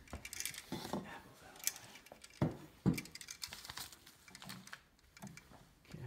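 Handling noise from electrical wires and a dimmer switch being worked by hand: light clicks and scrapes as copper ground wires are bent and twisted, with two louder knocks about halfway through.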